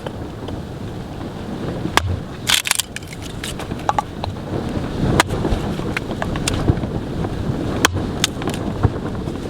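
Steady wind noise against the microphone, with a string of sharp crunches and knocks, loudest about two seconds in and again near the middle and two-thirds through.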